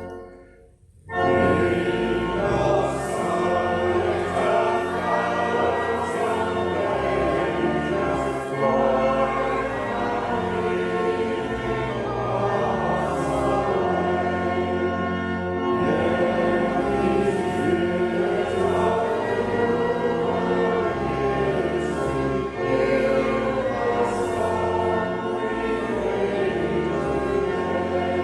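Choir singing a hymn, starting again after a brief pause about a second in.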